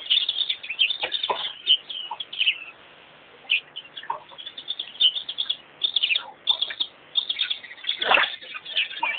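Small wild birds chirping and twittering in a busy, overlapping chorus of short high notes, which thins out briefly twice. A short thump comes near the end.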